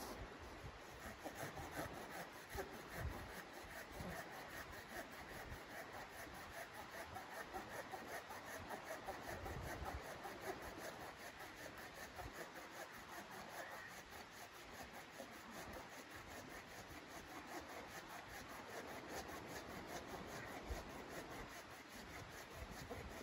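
Hand pruning saw cutting through a log, a continuous rasp of steady back-and-forth strokes.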